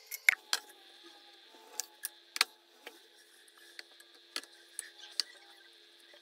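Scattered light clicks and knocks, about a dozen, of food and utensils being handled and set down on a wooden cutting board, among them a glass citrus juicer. Two knocks stand out, one just after the start and one about two and a half seconds in, over a faint steady hum.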